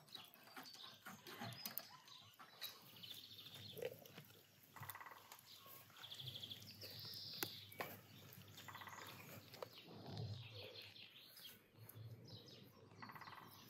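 Quiet outdoor ambience in which a faint, distant animal call repeats about every four seconds, with a few small bird chirps and light clicks in between.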